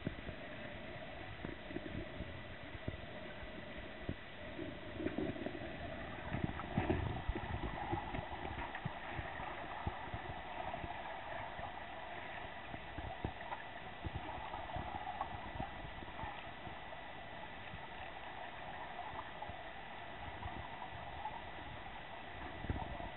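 Stream water heard underwater: a steady wash of flowing water with irregular knocks and clicks, busiest about five to eight seconds in, over a faint steady high tone.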